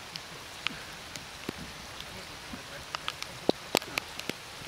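Steady rain with irregular sharp taps of raindrops striking the Garmin Virb 360 camera, coming thicker and louder for a second or so near the end.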